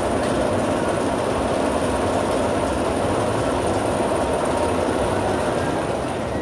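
Sierra Sidewinder, a Mack Rides spinning roller coaster, heard from on board as its car runs along the track: a loud, steady rumble of wheels on steel rail.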